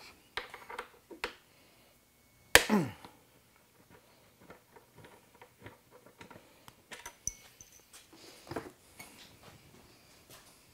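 Scattered light clicks and knocks of parts being handled and set down on a motorcycle, with one sharp, loud knock about two and a half seconds in that trails off in a short downward-sliding tone.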